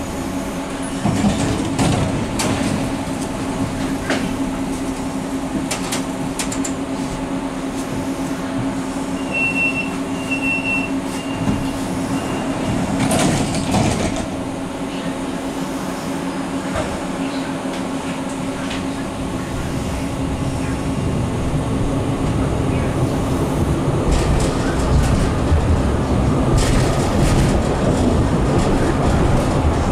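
Interior running sound of an NGT8B tram moving along the street: a steady electric hum over the rumble of wheels on rails, with scattered clicks and rattles. A few short high beeps sound about a third of the way through, and the rumble grows louder in the second half as the tram gathers speed.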